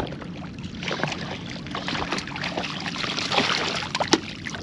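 Water sloshing around a fishing kayak, with scattered small knocks and clicks from handling gear and the catch; one sharp click about four seconds in.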